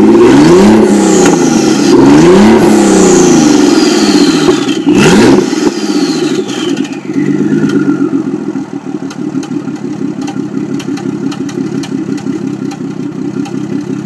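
Nissan 300ZX twin-turbo 3.0 V6 with open downpipes revved three times, each rev followed by a turbo whistle falling in pitch as the turbos spool down. It then settles into a steady, lumpy idle with light ticking.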